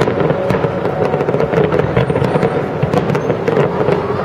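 Fireworks display: many aerial shells bursting in quick succession, a dense, continuous run of bangs and crackles.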